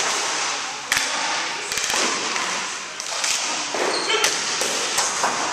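Hockey sticks clacking sharply against the ball, the wooden floor and each other in a floor hockey scramble, over a steady din of echoing gym noise. There is one clack about a second in, a quick cluster just after, and more near the end.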